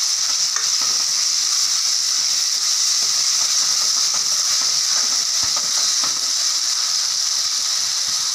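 Chopped onions, tomatoes, green chillies and curry leaves sautéing in hot oil in a metal kadai: a steady sizzle, with a steel ladle stirring and now and then scraping the pan.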